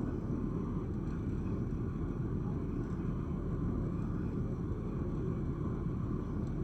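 Steady low rumble of a passenger ferry's engine running at an even pace.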